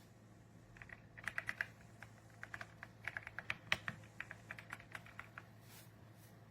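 Typing on the RK Royal Kludge R75, a gasket-mounted mechanical keyboard: a quick run of keystrokes in short clusters, starting about a second in and stopping about a second before the end.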